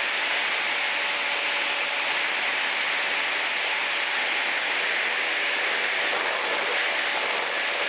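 Freewing L39 model jet's 80 mm electric ducted fan running steadily in flight, an even rushing whine mixed with airflow noise.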